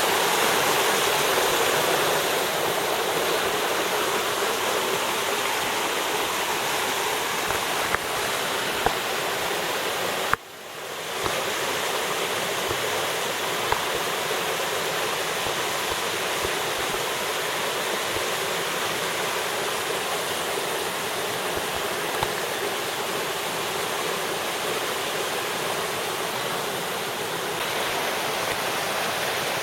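Rushing water of a rain-swollen, flooding creek running fast and high, a steady roar. It briefly drops out about ten seconds in.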